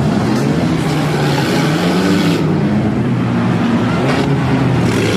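Demolition derby cars' engines running and revving, a loud wavering engine drone. A hiss of higher noise over it drops away about two and a half seconds in.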